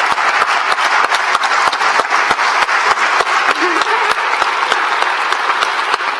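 A large audience applauding steadily, with single claps close by standing out sharply from the dense clapping.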